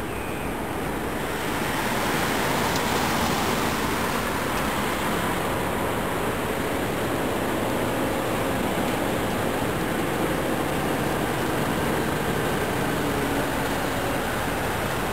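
Heavy tractor-trailer hauling a railway car approaching slowly: a steady engine and tyre noise that grows louder over the first couple of seconds, then holds.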